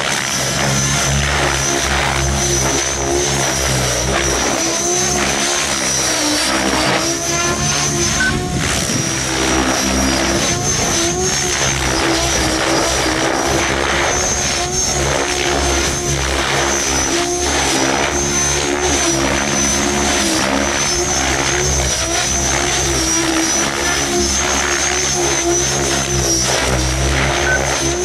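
Mikado Logo 700 electric RC helicopter flying 3D aerobatics, with the rotor blades and the whine of the electric motor and drivetrain. Their pitch dips and recovers continually as the collective loading changes through the manoeuvres.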